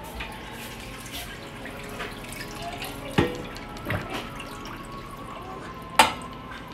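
A few sharp clinks or taps, each with a brief ring, over faint steady room noise; the loudest comes near the end.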